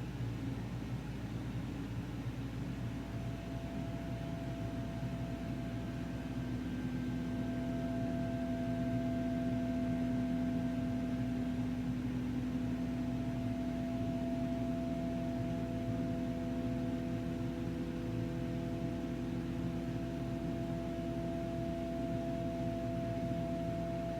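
Soft ambient background music: held drone notes come in a few seconds in and sustain over a steady low hiss.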